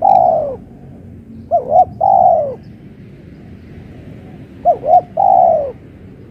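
Spotted dove cooing close by: a repeated three-part phrase of two short notes followed by a longer note that falls away. The end of one phrase opens, then two full phrases follow about three seconds apart.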